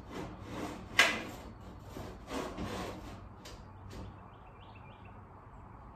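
Old window's sliding storm window or screen being forced along its track and sticking. There are several scraping, rubbing strokes, with a sharp knock about a second in, and the scraping dies away after about three and a half seconds.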